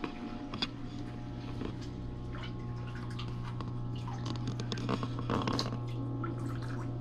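Water trickling and dripping in a saltwater aquarium, with scattered small splashes over a steady low hum.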